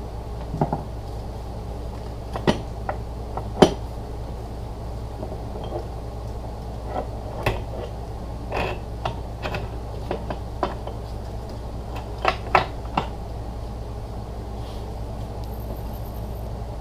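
Scattered metal clinks and knocks of NP208 transfer case parts (bearings, washers, rings) being handled during teardown, the sharpest about three and a half seconds in and a quick run of them near the end, over a steady low hum.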